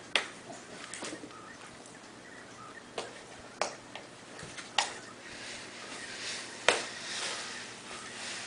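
Small dog gnawing a foam pool noodle: irregular sharp clicks of teeth biting into the foam, about six of them, the loudest near the end.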